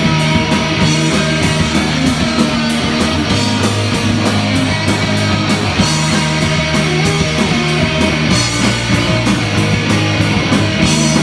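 Punk rock band playing an instrumental passage between sung lines: electric guitars, bass and drums, with cymbal hits about four times a second.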